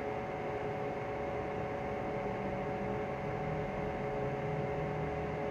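Steady static hiss with an electrical hum and a few held droning tones underneath, unchanging throughout.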